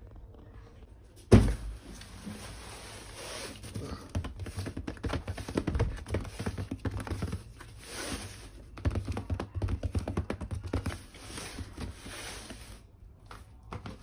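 Toy kitchen set pieces being handled: one loud thunk about a second in as something is set down, then a busy run of taps, clicks and rustling as the small pieces are picked up and moved about.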